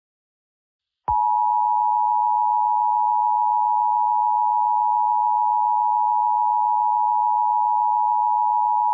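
Emergency Alert System attention signal: a loud, steady two-pitched electronic tone that starts about a second in, holds for about eight seconds and cuts off abruptly. It signals that an emergency broadcast message follows.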